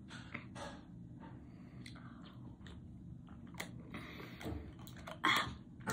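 Quiet clicks and rustles of a plastic Prime drink bottle and its screw cap being handled, with mouth noises from tasting the drink. A louder short sound about five seconds in.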